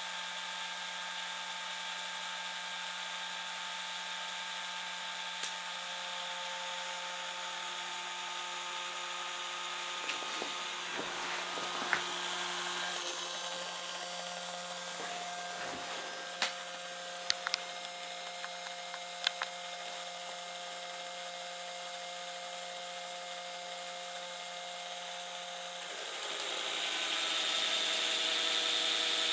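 Small electric motors of a prototype mini CNC crosscut saw running with a steady, multi-toned whine, with a few sharp clicks. About 26 seconds in the sound gets louder and a higher whine joins in as the drive changes.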